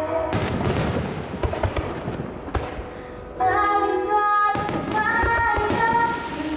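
Aerial fireworks bursting in quick succession with crackling. About three and a half seconds in, music with singing comes back up over the continuing bursts.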